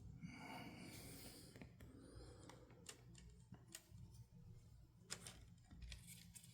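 Near silence with a few faint scattered clicks of plastic pry tools working at a thin, taped-on laptop screen bezel.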